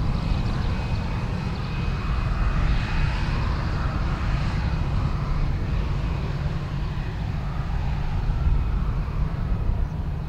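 Boeing 737-800's CFM56-7B jet engines running steadily as the airliner rolls along the runway: a low rumble with a faint high whine over it.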